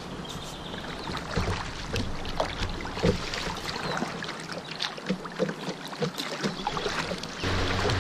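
Moving river water rushing and splashing around a kayak's hull as it runs a shallow riffle, with many small quick splashes. A louder low rumble comes in near the end.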